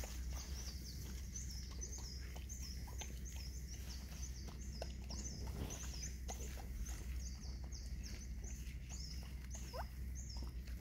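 Mother dog and puppies eating from food trays, with scattered wet chewing and lapping clicks. A high chirp repeats steadily in the background, about twice a second, and there is one short rising squeak near the end.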